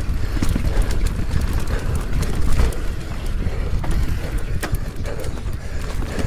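Mountain bike being ridden over rough ground: frequent sharp clicks and knocks from the tyres and the rattling bike, over a steady low rumble of wind on the camera microphone.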